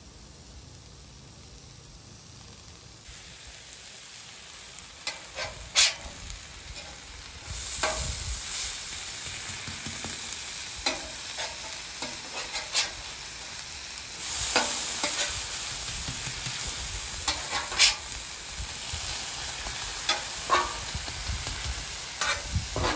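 Shredded hash browns sizzling in ghee on a hot flat-top griddle, with a metal spatula scraping and clacking against the cooktop as the patties are turned. The sizzle gets louder about eight seconds in and again around fourteen seconds.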